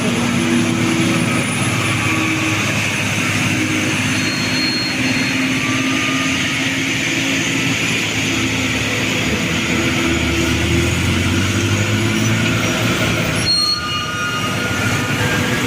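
Mercedes-Benz OH 1526 bus's diesel engine running steadily under load as the bus passes close by, with tyre and road noise. The sound dips briefly about 13 seconds in.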